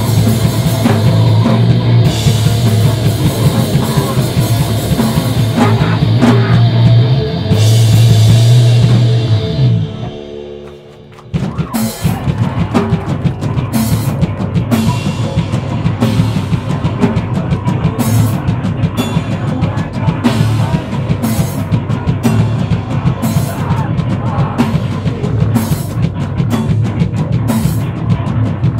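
Screamo band playing live at full volume with distorted electric guitars and a drum kit. About ten seconds in, the band drops out to a ringing guitar for a second, then crashes back in with hard, regular drum and cymbal hits.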